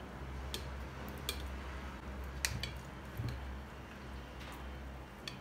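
Metal kitchen tongs clicking against a glass pickle jar and a ceramic bowl as pickled vegetables are lifted out: a few scattered, faint sharp ticks over a low steady hum.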